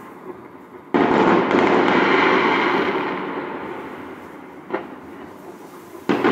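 Aerial firework shells bursting: a loud bang about a second in whose sound trails off slowly over about three seconds, a small sharp pop near the fifth second, and another loud bang near the end.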